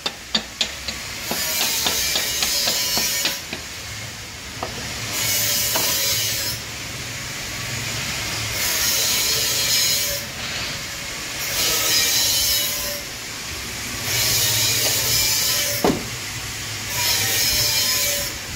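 Compressed air hissing from a blow gun in about six bursts of one and a half to two seconds, roughly every three seconds, blowing out the engine block's liner seal-ring grooves before new cylinder sleeves go in. A couple of sharp clicks at the start.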